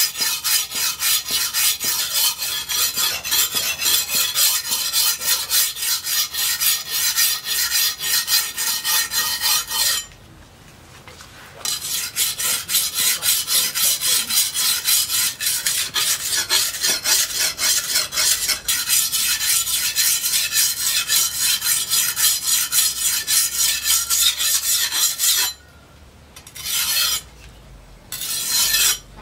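Large disc-plough steel knife blade being sharpened on a flat whetstone, with quick back-and-forth strokes of steel on stone, about three or four a second. The strokes pause briefly about ten seconds in, resume, and end with a few short separate strokes near the end.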